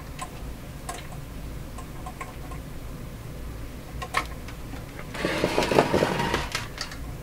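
Hands working on a reel-to-reel tape recorder: a few light clicks and taps from handling its metal knobs and parts, then a rough scraping rattle for about a second and a half near the end, over a steady low hum.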